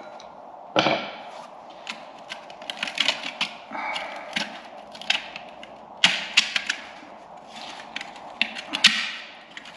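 Steel parts and hand tools being handled during the strip-down of a Bristol Hercules reduction gear: a sharp metal knock with a short ring about a second in, then irregular clicks, clinks and light knocks of metal on metal.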